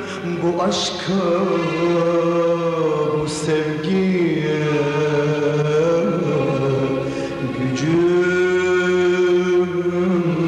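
A man singing a slow Turkish song in long held notes that slide and bend between pitches, over instrumental accompaniment. Near the end he holds one note for a couple of seconds.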